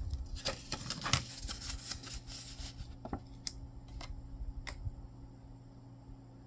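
Crinkling and rustling of packaging being handled at a desk, then a few separate light clicks, leaving a faint steady electrical hum.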